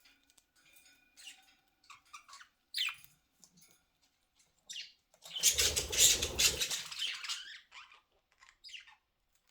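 Pet budgies chirping briefly, then a burst of wing flapping about five seconds in that lasts around two seconds, close and loud, as a budgie flies off.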